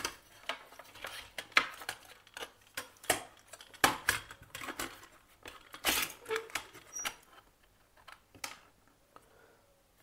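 Plastic PVC switch board being handled and turned over, with irregular clicks and knocks of the hard plastic and rustles of wire against it.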